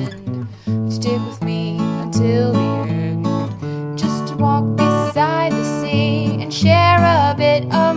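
Song with strummed acoustic guitar, a voice singing the melody over it in the second half.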